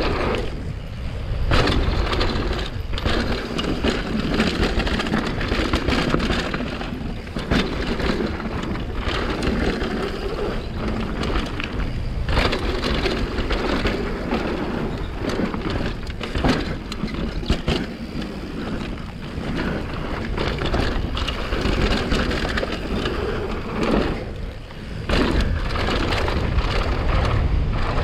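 Mountain bike ridden fast down a dirt downhill trail: a continuous rush of tyre and wind noise with frequent clatter from the bike over bumps. It eases off briefly near the end.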